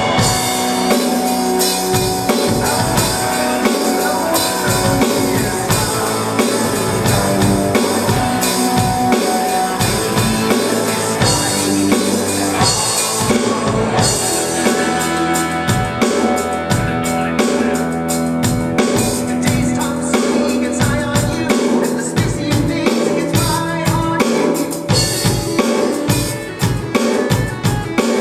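Live music with a drum kit playing a steady beat under sustained pitched instruments, played continuously as a sound check.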